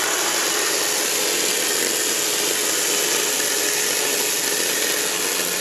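Handife 8-inch 20-volt brushless battery mini chainsaw running at steady speed while its chain cuts through a log. It makes a steady electric whine with the hiss of the chain in the wood.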